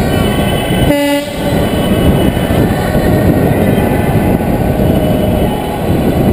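Fire engine (water tender) on the move, heard from inside its cab: a steady, loud rumble of engine and road noise, with a short horn toot about a second in.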